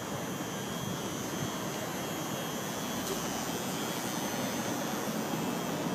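Steady city background noise, an even rushing din with no single sound standing out.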